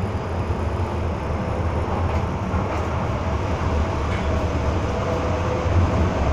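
Interior of an MTR M-Train carriage running along the Tsuen Wan Line: a steady low rumble of wheels on rail and running gear, growing slightly louder near the end.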